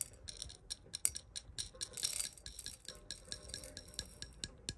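Small gold flakes and nuggets poured off a folded paper into a small metal scale pan, landing as a run of light clinks and ticks, with a brief rush of sliding pieces about two seconds in.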